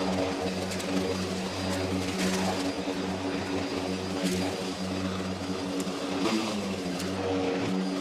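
Worx Nitro WG761E cordless electric lawnmower running steadily while mowing grass: a steady motor hum with a whirring blade and faint ticks from the cut. The hum wavers briefly about six seconds in.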